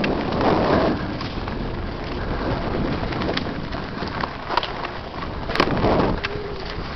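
Mountain bike rolling fast down a dirt trail, heard from a helmet-mounted camera: wind rumbling on the microphone and tyres running over dirt and rock, with scattered sharp clicks and rattles from the bike.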